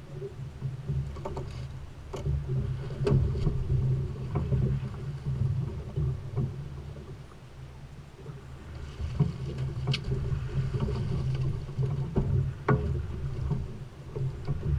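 Boat's Volvo D4-225 diesel running under a low rumble, with water washing along the hull and the splashing of a hooked yellowfin tuna thrashing alongside. Several sharp knocks stand out, the clearest about two, three, ten and twelve and a half seconds in.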